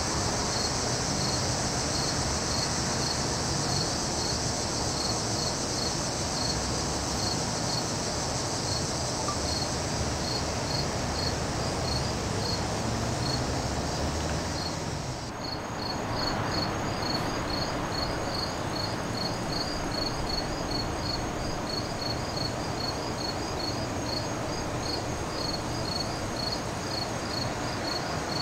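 Crickets and other insects chirping in a steady, evenly pulsing evening chorus over a low background hiss. About halfway through the chorus dips for a moment, then carries on.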